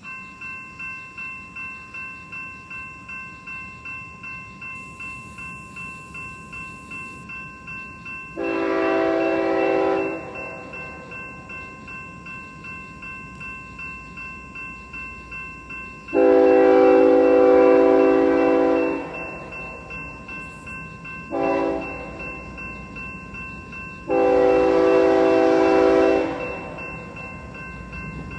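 A railroad crossing's electronic bell (a GS Type 2 E-Bell) rings in rapid, even strikes. An approaching freight locomotive then sounds its horn long, long, short, long: the standard grade-crossing warning. The horn blasts are the loudest sound, with the bell still ringing beneath them.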